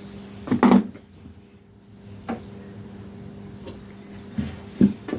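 Sharp clicks and knocks of small metal picks working at a ring clip in a Ducati 749S fork part. There is a loud double knock about half a second in, a lighter click a couple of seconds later, and three more near the end, over a steady low hum.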